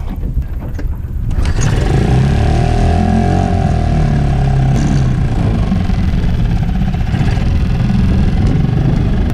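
New Yamaha 4 hp single-cylinder four-stroke outboard motor being broken in; it comes up in level about a second and a half in and then runs steadily.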